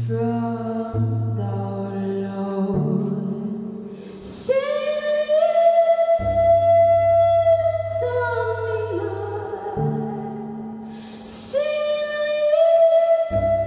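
A woman singing long, slow held notes over low, sustained cello notes. Short hissing 's' sounds mark three of her phrases, and the low cello notes drop out twice.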